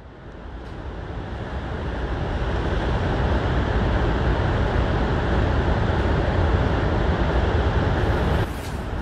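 Rushing floodwater of the swollen Androscoggin River: a steady, loud rush of churning water with a deep rumble underneath. It fades in over the first couple of seconds and drops a little in level near the end.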